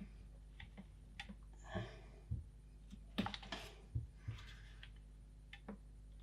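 Hot glue gun and small plastic parts being handled: scattered light clicks and taps, with a few short scrapes, as hot glue is run around a push-button.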